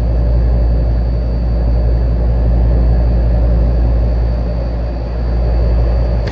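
1977 GE Superthrust window air conditioner running close up: its fan and rotary compressor make a loud, steady low hum and rush of air. The sound cuts off abruptly at the very end.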